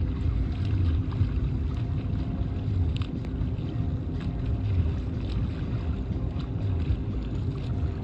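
Boat motor running steadily at one pitch, with wind buffeting the microphone.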